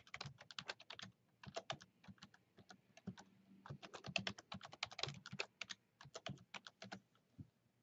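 Faint computer keyboard typing: quick runs of keystrokes with a couple of short pauses, as a new password is typed and then typed again to confirm it.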